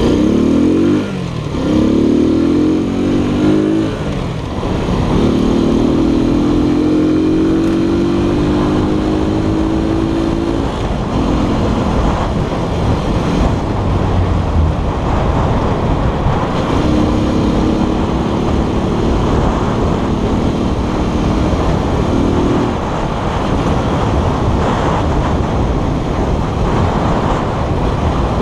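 Keller Crono 110 scooter's small single-cylinder engine running on the road, its pitch rising slowly three times as it accelerates, under heavy wind rushing over the microphone.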